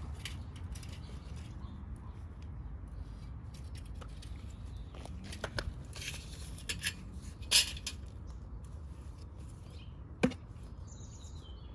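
Scattered light clicks and taps of hands and tools working on sewer pipe and fittings, with two sharper knocks about halfway through and again near the end, over a low steady rumble.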